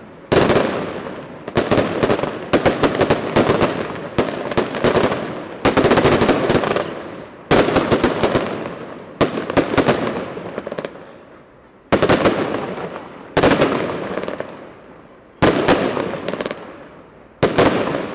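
Automatic gunfire at night: about a dozen short bursts of rapid shots, one every one to two seconds, each followed by a long rolling echo. The streaks of light rising in lines are tracer rounds.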